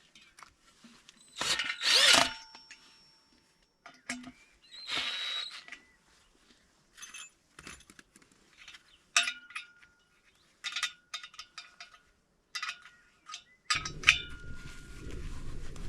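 Scattered metal clinks, knocks and scrapes, several knocks leaving a short ringing tone, as a fence pole is worked into place and levelled. A low rumble comes in near the end.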